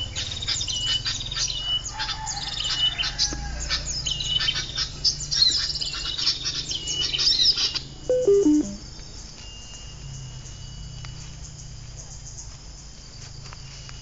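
Recorded bird calls played from a phone speaker as a lure: a dense, fast stream of chirps and repeated high notes that cuts off suddenly about eight seconds in, leaving quieter insect sounds.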